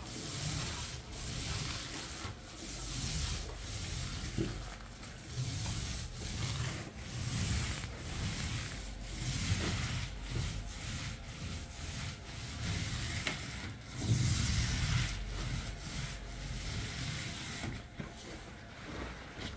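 Paint roller on an extension pole rolling wet paint across a ceiling: a sticky, rubbing swish that swells and fades with each back-and-forth stroke.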